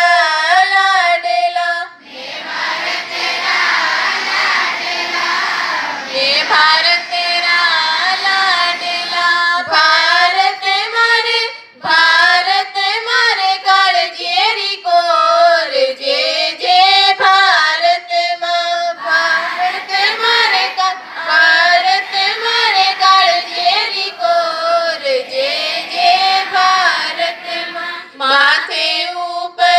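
A school prayer sung by a group of schoolchildren together with a woman's voice, in long melodic lines. The singing breaks off briefly about two seconds in and again about twelve seconds in.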